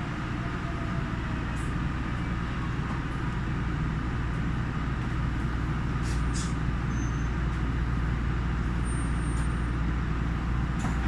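Yui Rail monorail car running on its track, heard from inside the car: a steady low rumble of the motors and rubber tyres with a wash of running noise, with a few faint clicks.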